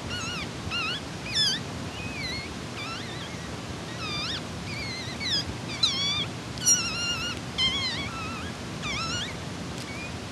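Newborn Yorkshire terrier puppy crying in a string of short, high-pitched squeaks, each bending up and down in pitch, about fifteen over ten seconds and loudest near the middle, while it is given a subcutaneous fluid injection.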